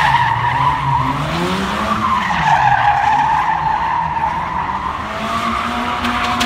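Polaris Slingshot three-wheeler doing donuts: its rear tyre squeals steadily while the GM 2.4-litre four-cylinder engine revs up and down again and again.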